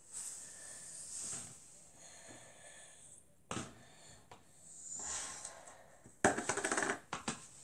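A wooden craft stick scraping glue from a thin plastic cup into a plastic bowl, with breathing close to the microphone and a single knock partway through. Near the end comes a brief, loud run of rapid crackling clicks as the thin plastic cup is handled and set down on the table.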